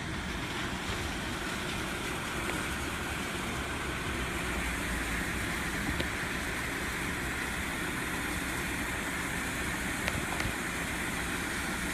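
Kärcher pressure washer jetting water onto concrete walls and floor: a steady rushing hiss of the spray with the machine running underneath.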